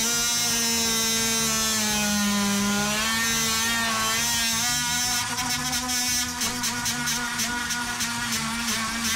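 A small handheld power tool buzzes with a steady whine as its blade cuts into the wooden window joint, finishing an incomplete cut from the original install. The pitch sags briefly about two seconds in as the blade takes load, and a rattling chatter joins from about the middle.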